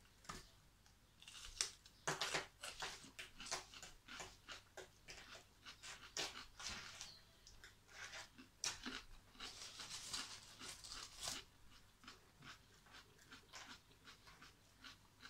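Close crunchy chewing and biting of raw red bell pepper: a string of irregular crisp crunches.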